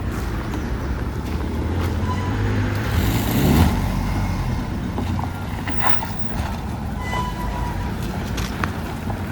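Offroad 4x4's engine running with a steady low drone. It rises briefly in a rev about three seconds in, with scattered clicks and knocks over it.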